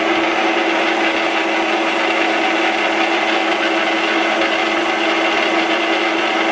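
Metal lathe running under power with the lead screw and change gears engaged, its single-point 60-degree tool cutting a thread in steel. A loud, steady mechanical hum with a constant tone, unchanging throughout the pass.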